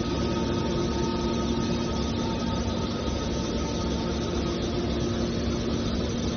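Metal baler machinery running steadily: dense machine noise with a constant hum at several steady pitches, unchanging throughout.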